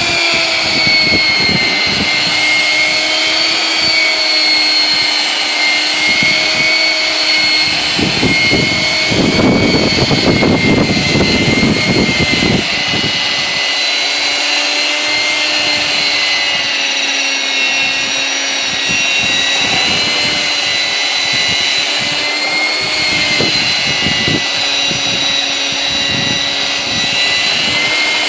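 Electric belt sander running steadily with a high motor whine as it sands a wooden chair along the grain. The rasp of the belt on the wood grows louder for about four seconds roughly a third of the way in.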